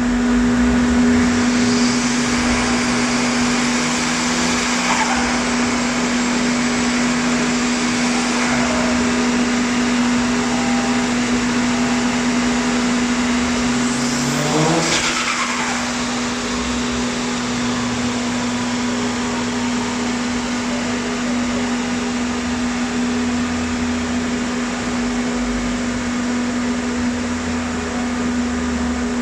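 Turbocharged 2.0 TSI engine of a stage-2 tuned VW Golf 6 GTI Edition 35, with a K04 turbo, downpipe and intake, running under a steady loud hum. A quick rising whine sweeps up in pitch about halfway through.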